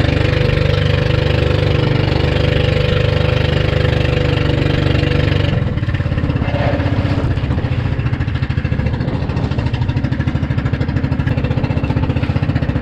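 Small engine of an outrigger fishing boat running steadily under way. A little past halfway the sound changes: the hiss thins and a rapid pulsing comes through more plainly.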